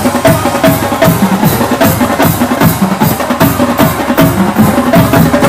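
Marching band playing: the drumline's bass drums, snares and cymbals hit a steady beat, about two to three strikes a second, under the horns.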